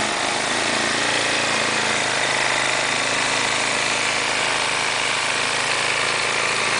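Walk-behind gas snowblower engine running steadily while it is pushed through deep snow, the chute throwing snow.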